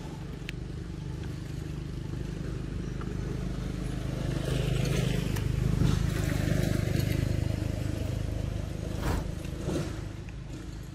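A motor vehicle's engine passing: a low rumble that swells to its loudest about halfway and then fades away. There are two short rustles near the end.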